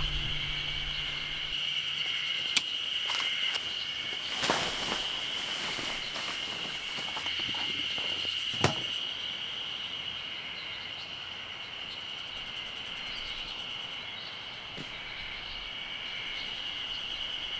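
Campsite ambience with a steady high-pitched insect drone, broken by rustling steps about four and a half seconds in and two sharp clicks, near two and a half and eight and a half seconds in.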